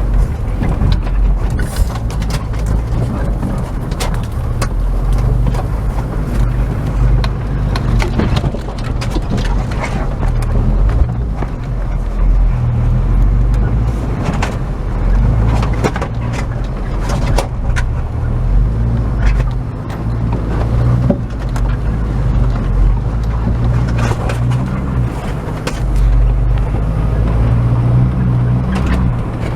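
Opel Frontera A Sport driving off-road: the engine runs continuously with its note shifting under changing load. Scattered knocks and clatter from the vehicle over rough ground run through it.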